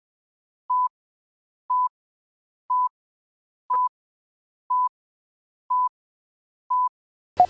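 Countdown-leader beeps: a short, steady tone at one pitch sounding once a second, seven times, then a sharp click just before the end.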